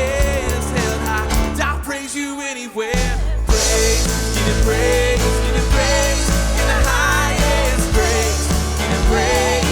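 Live worship band playing: singers over drums, bass guitar and piano. The bass and drums drop out briefly about two seconds in, then come back in.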